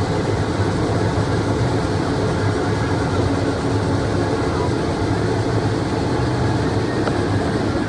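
Combine harvester running steadily in a corn field, a constant machine drone with a low hum.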